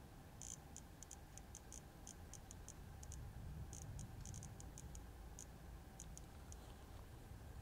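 Faint, sharp clicks in irregular clusters, several a second, from a phone running the Blitzortung lightning-tracker app, whose clicks mark detected lightning strikes. A low steady hum lies underneath.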